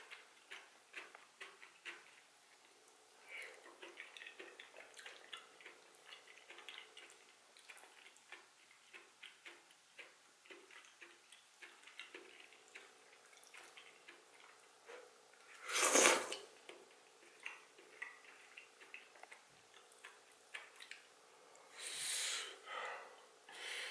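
Close-miked eating sounds: chewing soft cooked greens, with many small wet clicks and smacks. A louder, short rushing sound comes about two-thirds of the way in, and longer ones near the end.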